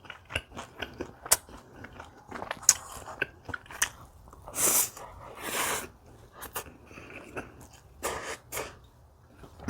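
A person chewing food close to the microphone, with many small wet mouth clicks and two longer crunching stretches about halfway through.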